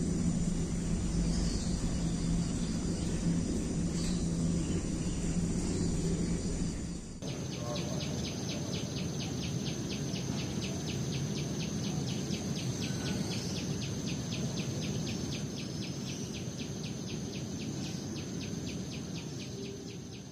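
Outdoor ambience. A low steady hum with a few brief bird chirps gives way, after a cut about seven seconds in, to an insect chirping rapidly and evenly, about four to five pulses a second, over a steady high tone. It fades out near the end.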